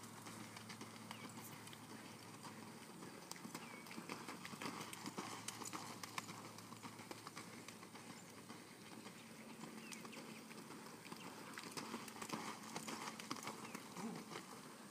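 A horse's hoofbeats on soft arena sand at a canter, fairly faint, as irregular dull thuds.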